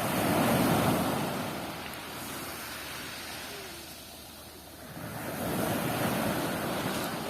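Black Sea waves breaking on the shore: two swells of rushing surf, one about a second in and another around five to six seconds in, with a quieter wash between.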